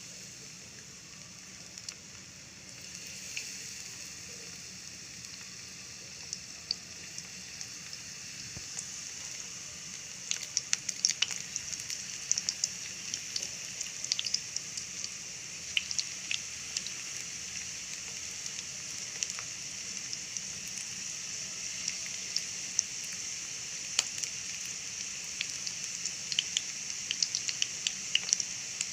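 Egg-and-wheat-flour-coated chicken pieces frying in hot oil: a steady sizzle that grows slowly louder, with sharp crackles and pops from about ten seconds in.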